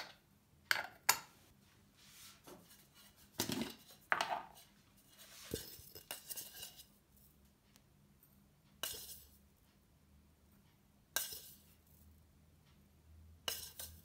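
Aluminium moka pot parts clinking as the funnel filter is handled and set into the base, then a metal spoon scraping and tapping against the coffee tin and the filter while ground coffee is scooped in. The sound is a series of separate sharp clinks with a stretch of scraping in the middle.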